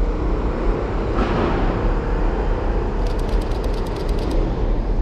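Loud, steady street din of traffic, with a rapid burst of about a dozen Canon 850D DSLR shutter clicks a little past halfway through.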